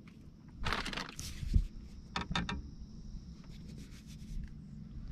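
A clear plastic food container and plastic fork being handled, crinkling and scraping, with a dull knock about a second and a half in and a few quick clicks just after two seconds.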